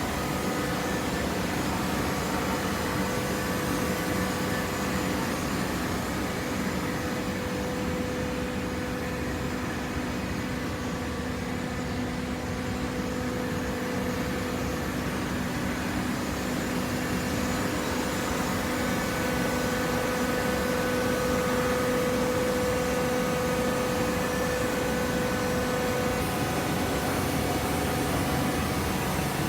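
Hydraulic baler running steadily: a motor-and-pump hum with a held tone that swells and fades slightly.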